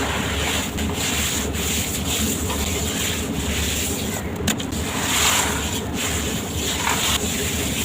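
Sand-cement shapes being crumbled and rubbed by hand, a continuous gritty crunching with uneven swells and a few small cracks, over a steady low hum.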